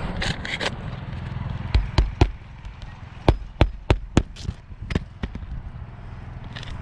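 Claw hammer striking roofing nails in asphalt shingles: about ten sharp metal knocks, in quick runs of three or four, over a steady low rumble.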